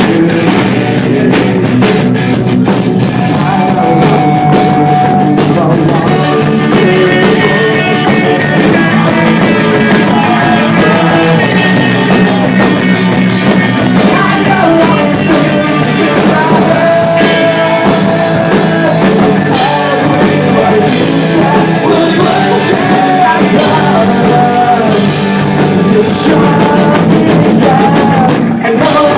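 Rock band playing live: a singer over a drum kit and guitars, loud and continuous.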